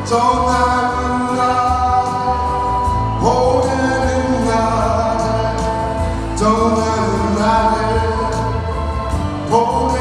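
A man singing a Korean trot-style song into a microphone over a backing track with a steady bass beat, amplified through a PA. He holds long notes, moving to a new phrase about every three seconds.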